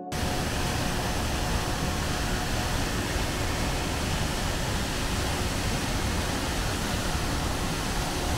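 Loud, steady rush of a large mountain waterfall cascading through a narrow rock gorge. It cuts in abruptly at the start.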